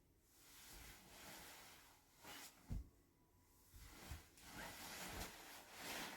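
Faint, slow breathing of a sleeping woman: breaths swell and fade every few seconds, with a few soft low thumps of movement in between.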